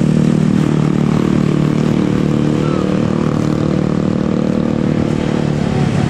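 Diesel engine of an intercity coach passing close by, a steady drone with motorcycle engines and road noise around it. The drone fades out near the end.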